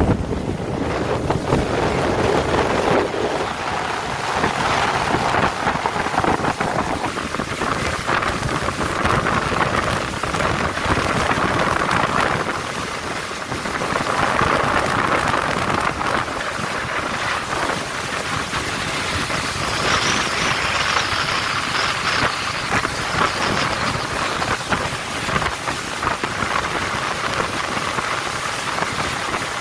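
Steady rush of wind and splashing spray from a motor launch running at speed across the water.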